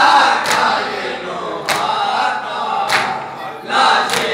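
A group of men chanting a noha in chorus, with sharp chest-beating strokes of matam landing together at an even beat about every 1.2 seconds, four strokes in all.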